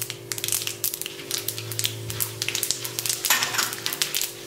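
Mustard seeds, cumin and urad and chana dal sizzling and crackling in hot ghee in a nonstick kadai: the tempering (tadka) stage, stirred with a spatula near the end. A steady low hum runs underneath.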